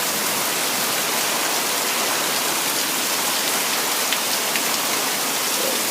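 Heavy rain pouring down steadily, a dense even hiss of rain hitting the ground and surfaces, with a few faint drop ticks.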